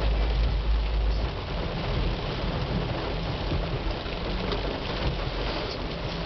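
Heavy rain hissing steadily on a car's windshield and roof, heard from inside the cabin, over a low rumble that eases a little just over a second in.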